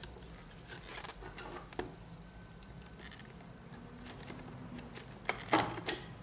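Faint plastic clicks and rubbing as fingers twist the locking ring on the drum axle of a Lexmark laser printer drum unit to loosen it, with a louder click near the end.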